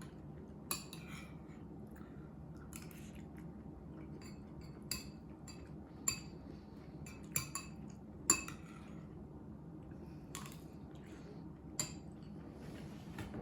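Utensils clinking on dishes: about ten light, irregular clinks, each with a short ring, over a steady low hum.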